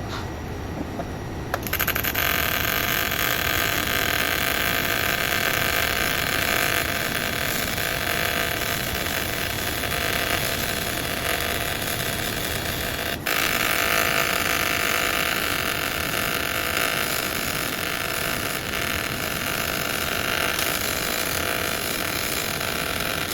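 TIG welding arc on stainless steel, struck about one and a half seconds in and then hissing steadily, with a momentary break about thirteen seconds in.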